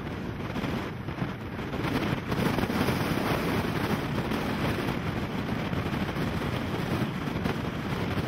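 Strong, gusty wind buffeting the camera microphone, a dense rushing rumble that builds about two seconds in and then holds steady.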